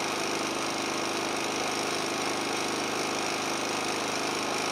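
Poxurio 6000-watt dual-fuel inverter generator running steadily inside its enclosed quiet case, at an even engine speed.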